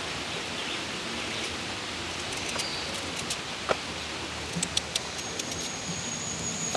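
Steady outdoor background hiss with a few faint clicks and scrapes from a knife peeling Irish potatoes by hand; a thin, high steady tone comes in about five seconds in.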